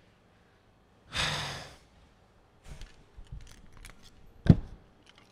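A man sighs, then small clicks and rattles as he fiddles with a key and its plastic key tag in his hands, with one sharp click about four and a half seconds in.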